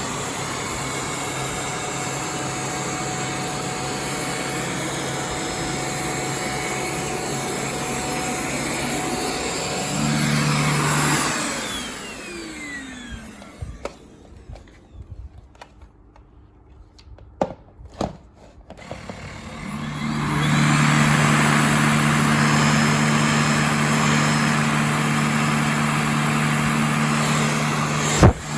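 Xiaomi Mijia wired dust mite vacuum cleaner's motor running steadily. About ten seconds in a deeper hum joins and it gets louder. It then winds down with a falling whine, is quiet for a few seconds apart from a few clicks, and spins back up to run steadily again, with a sharp click near the end.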